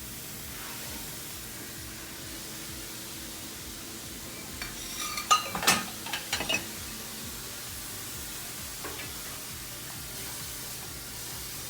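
Dishes clinking and clattering in a short burst around the middle, some with a brief ringing tone, over a steady hiss.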